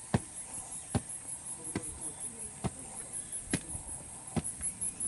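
Footsteps on wooden stairs, one heavy step about every second, at a slow climbing pace. A steady high insect trill runs underneath.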